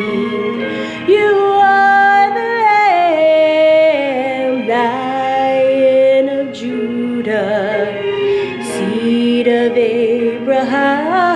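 A woman singing a slow worship song solo over instrumental accompaniment, holding long notes with vibrato.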